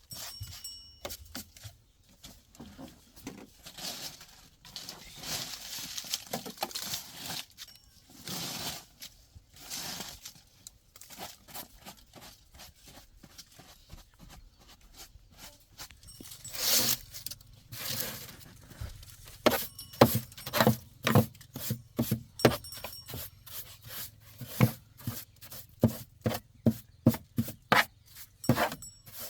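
Irregular scraping and rubbing strokes, then about two-thirds of the way in a run of sharp taps or knocks, roughly two a second, louder than the scraping.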